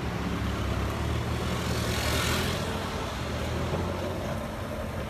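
Farm tractor engine running steadily as it works the ground with a front-mounted blade, with a brief rustling hiss about two seconds in.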